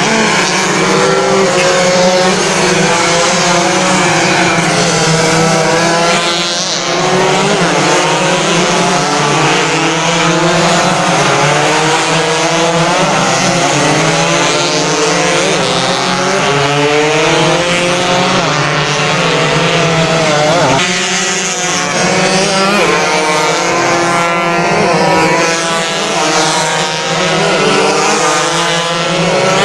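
Several 120cc two-stroke underbone racing motorcycles at full throttle, their engine notes rising and falling and overlapping as they pass.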